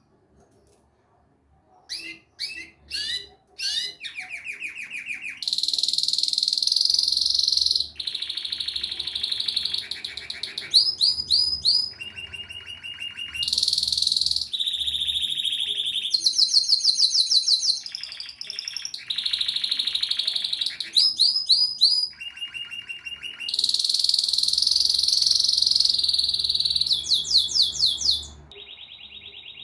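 Domestic canary singing a long, varied song of rapid trills, rolling buzzy phrases and repeated chirps, each run lasting a second or two before switching to the next, starting about two seconds in.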